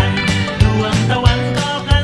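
Background music with a steady beat and a bass line, about one and a half beats a second.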